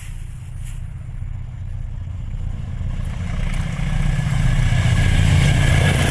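Diesel locomotives hauling a passenger train: a low engine rumble with rail noise that grows louder as the train approaches and draws level.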